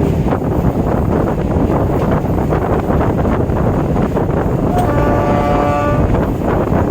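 Local train running at speed: a steady, loud rumble with wind buffeting the microphone. About five seconds in, a horn sounds for roughly a second.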